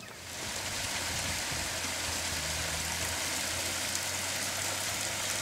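A steady rushing hiss with a faint low hum under it, starting just after the beginning and holding level.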